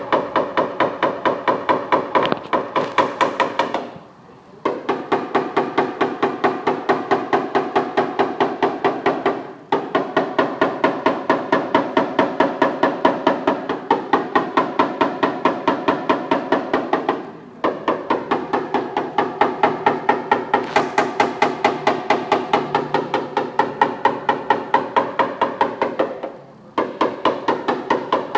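Rapid light hammer taps on a sheet-metal body panel during paintless dent repair, several taps a second with a ringing metallic tone. The taps come in runs of several seconds, with brief pauses between runs.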